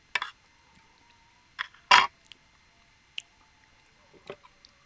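Close-miked mukbang eating sounds: a few sharp bites and wet mouth clicks while chewing, the loudest a crunchy bite about two seconds in.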